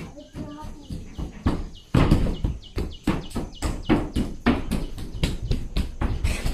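Footsteps thudding on the wooden floorboards of a raised timber house as a small child runs across it: a quick, uneven series of knocks that gets louder about two seconds in.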